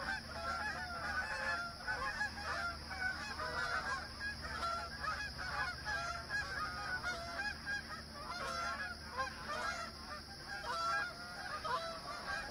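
A flock of geese flying overhead, honking continuously with many overlapping calls: kind of noisy.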